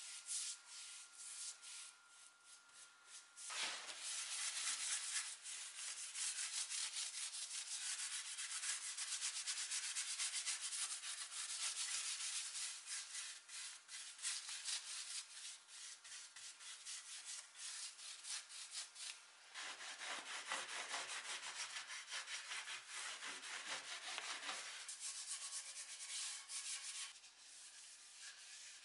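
Hand-worked rubbing strokes over black-finished wooden chair parts: a dense, hissing rub made of many quick back-and-forth strokes. It is fainter at first, grows louder about three seconds in, and eases off again in the last third.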